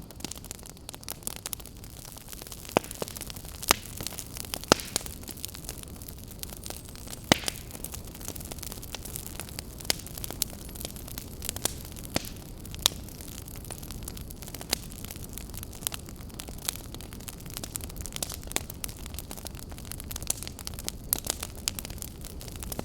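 Campfire crackling: wood burning with irregular sharp pops and snaps, several a second and a few louder ones, over a steady low rushing noise.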